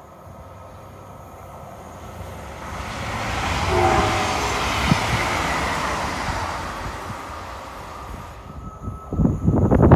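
SJ X2000 express train passing through a station at speed: a rushing sound of wheels and air that builds, peaks about four seconds in and fades away, with a brief faint horn note as it goes by. Near the end a much louder, rough crackling noise cuts in.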